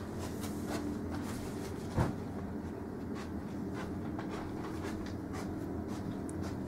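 Handling noise from a handheld camera: faint scratches and clicks with one louder knock about two seconds in, over a steady low hum.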